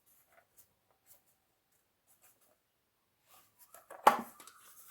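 A few faint clicks of a geometry box and small sewing items being handled, then one sharp knock about four seconds in with a brief rattle after it.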